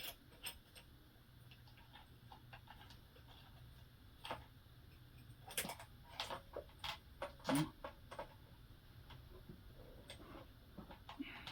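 Scattered light clicks and ticks of a saw chain being handled and worked onto a chainsaw bar, coming several in quick succession around the middle.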